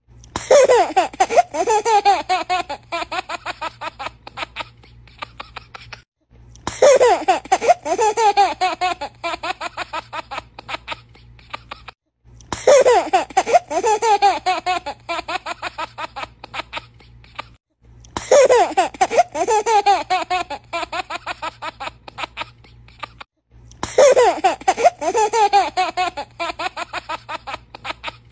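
A baby laughing: a roughly six-second run of high giggles followed by quick, pulsing laughter, looped about five times with a brief break between repeats.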